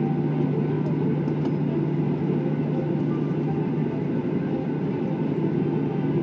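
Cabin noise of a Boeing 737-800 taxiing after landing: the steady hum of its CFM56 jet engines at taxi idle heard through the cabin, with a steady low tone under it.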